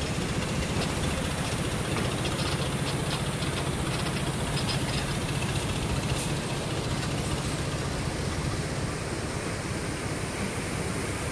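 Steady hum of a drone's motors with the even rushing hiss of its propellers in flight.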